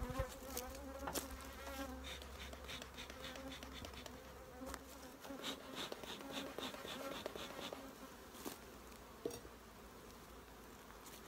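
Honeybees buzzing steadily around an open hive, with runs of quick puffs from a beekeeper's bellows smoker. The colony is getting extra smoke to calm it because it is on the defensive side.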